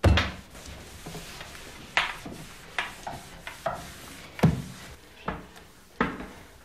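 Kitchen clatter: a hard knock at the start, then a run of sharp clacks and knocks about once a second as kitchenware is handled at the sink.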